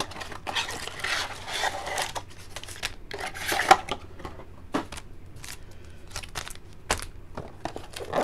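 Trading card packs and cardboard boxes being handled: irregular crinkling and rustling of foil wrappers, with a few sharp taps and knocks of cardboard.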